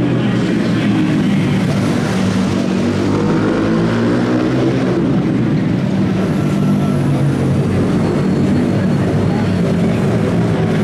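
Small four-stroke mini ATV racing engines running hard around a concrete track, their pitch repeatedly rising and falling as they rev up through gears and ease off.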